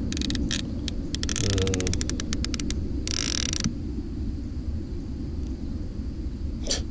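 Round baitcasting fishing reel's ratchet clicking, over a low steady rumble: a few scattered clicks, then a quick even run of clicks, then a short buzzing burst about three seconds in. A brief high squeak near the end.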